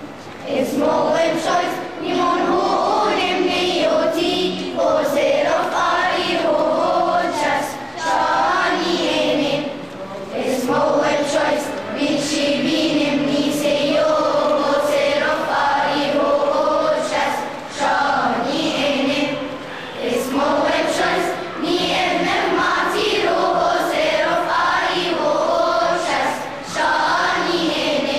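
Children's and teenagers' choir singing together, in sung phrases with a short breath between them about every two seconds.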